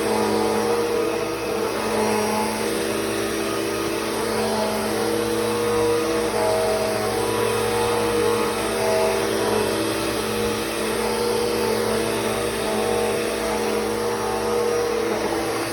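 Bissell CleanView 3536 vacuum cleaner running steadily, its motor hum swelling and easing slightly as it is worked.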